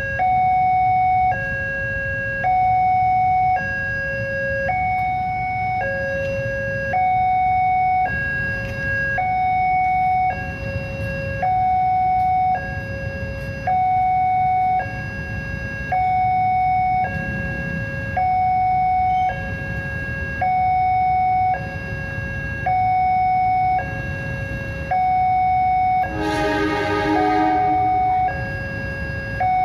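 Railway level-crossing warning alarm sounding for an approaching train: two steady electronic tones alternating high and low, each held about a second, over a low traffic rumble. Near the end a diesel locomotive's horn blows once for about a second and a half.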